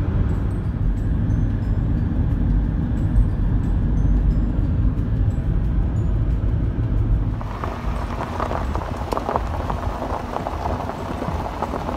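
Camper van driving, heard from inside the cab: a steady low road and engine rumble. About seven seconds in it changes to the crackle of tyres rolling over a gravel road.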